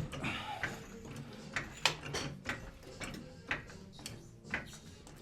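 Irregular clicks and knocks, about one every half second to a second, from tools and metal parts being handled in a workshop, over a faint low hum.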